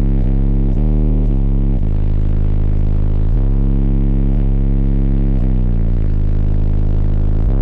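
Bass-heavy music played loudly through a car's subwoofer system of four 15-inch Sundown Zv5 subwoofers powered by Sundown SALT 8 amplifiers. Deep, sustained bass notes step to a new pitch every second or so.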